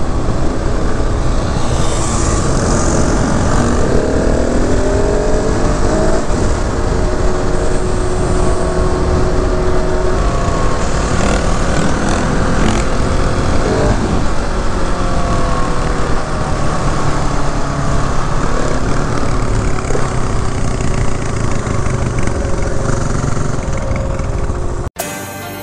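KTM 690 SMC R's single-cylinder engine heard from onboard while riding, its pitch rising and falling as the rider accelerates and shifts through the gears.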